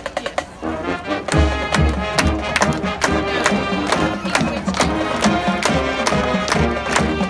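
High school marching band playing: a quick, even clicking beat from the percussion gives way under a second in to the full band, brass and drums together, with heavy bass drum hits on a steady beat from about a second and a half in.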